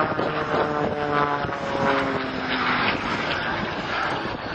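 Propeller-driven aerobatic aircraft engine droning overhead, its pitch shifting in steps as it manoeuvres, with some wind noise on the microphone.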